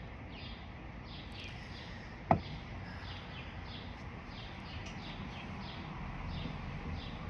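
A bird chirping over and over, short falling chirps about two a second, over a steady background hiss. One sharp tap about two seconds in.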